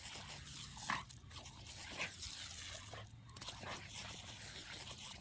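A dog chewing and mouthing at something on the ground, with a few short crunching sounds, the clearest about one and two seconds in, over a faint steady background noise.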